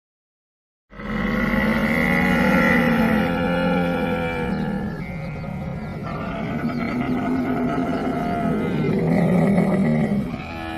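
Camel bellowing, a long low call that starts about a second in after a moment of silence, easing off briefly midway and then carrying on.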